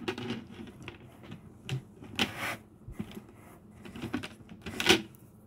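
Irregular plastic clicks and knocks as small feet are pressed firmly into holes in a plastic turntable organizer's lid, the loudest about two seconds in and near the end.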